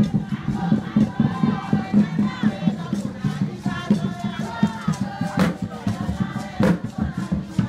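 Music: a group of voices singing or chanting together over a pulsing beat, with a few sharp percussion strikes in the second half.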